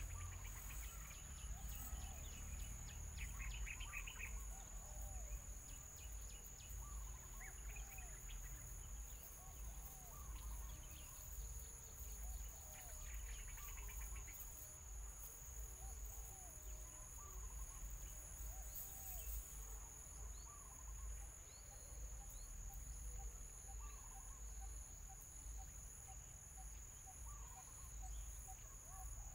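Steady high-pitched insect drone, typical of crickets, with a short rising-and-falling call repeated about every second and a half and a couple of brief buzzing trills. Low rumble underneath.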